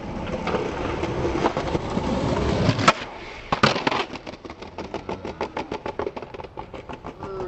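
Skateboard wheels rolling on concrete, growing louder, then a sharp snap of the board about three seconds in and a clack of it landing half a second later. A fast run of clicks follows, speeding up, and ends with a falling tone.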